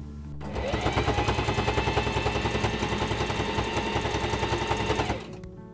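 Singer 4411 Heavy Duty sewing machine running, its needle stitching a zigzag seam through fabric in a fast, even chatter over a motor whine. It starts about half a second in and stops about a second before the end.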